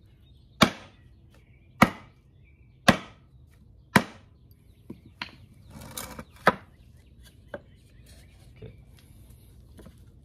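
A hammer striking a wooden door frame four times, about a second apart, knocking a joint that was not lining up into place. Then a few lighter knocks and the wood bumping and scraping on concrete as the frame is laid down.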